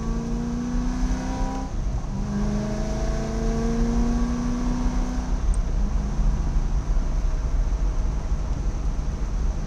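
Car engine heard from inside the car, accelerating hard through the gears: its pitch rises, drops at an upshift about two seconds in, rises again, and shifts once more about five and a half seconds in. A steady low rumble runs underneath.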